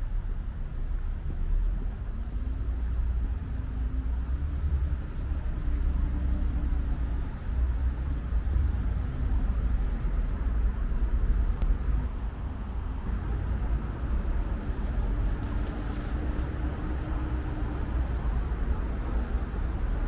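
City road traffic: a steady low rumble of cars and buses on a nearby road, with the hum of passing vehicles swelling and fading twice.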